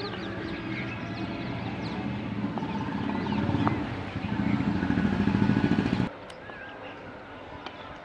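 A vehicle engine running nearby and growing louder, over many small birds chirping. The engine sound cuts off suddenly about six seconds in, leaving only the birds.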